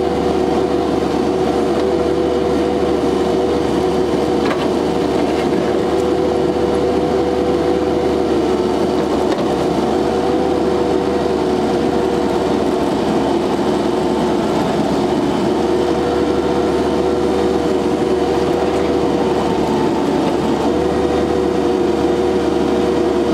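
Engine of an SCL 1000 compact loader running steadily while the machine drives, an even drone with a constant whine.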